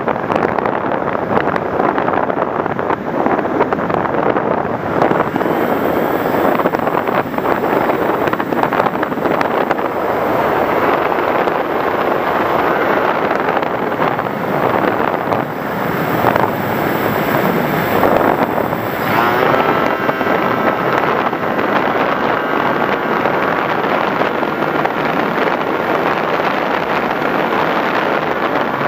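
Rush of wind over the microphone of an FPV Raptor model plane in flight, a steady loud noise. From about two-thirds of the way in, a faint motor whine rises and falls in pitch over it.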